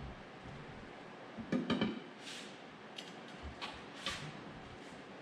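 Metal tire irons clanking against a steel tractor wheel rim while prying the tire bead off. A cluster of sharp ringing knocks comes about a second and a half in, followed by several short scraping sounds.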